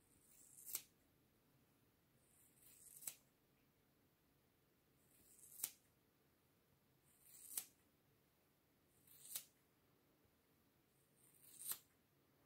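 Scissors snipping through hair: six slow cuts about two seconds apart, each a short building swish that ends in a sharp snip.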